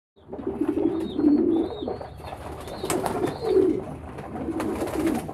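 A flock of domestic pigeons cooing, many calls overlapping one another, with a few short clatters among them.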